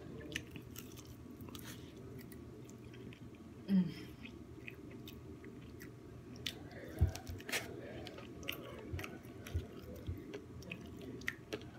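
A person chewing and biting food close to the microphone, with scattered small wet mouth clicks and smacks. A brief vocal murmur comes about four seconds in.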